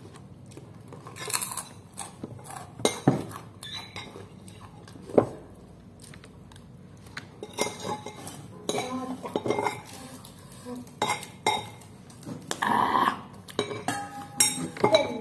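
Metal spoon clinking and scraping against a ceramic bowl while eating, in short irregular clicks.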